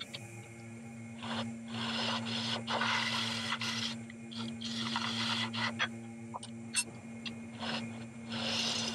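Wood lathe running with a steady motor hum while a bowl gouge cuts the spinning square blank of green, wet maple, giving bursts of scraping, shaving noise that come and go over a second or two at a time, with a few sharp ticks.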